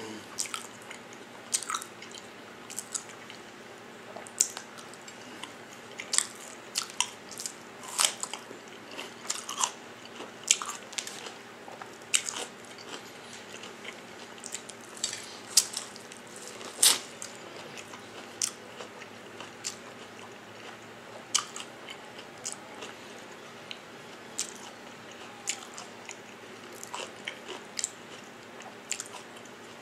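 A person biting and chewing food, with sharp crunches and mouth clicks coming irregularly, sometimes several a second, growing sparser in the second half.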